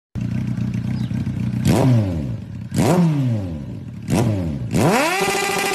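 Motorcycle engine idling, then revved in three quick throttle blips about a second apart, each jumping up sharply and falling back. Near the end a rising tone levels off into steady held notes as music starts.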